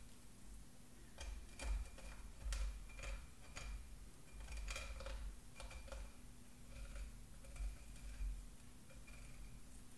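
Filleting knife clicking over the bones of a Dover sole as the fillet is cut away from the frame on a wooden board: soft, irregular ticks, several a second at times, with pauses between.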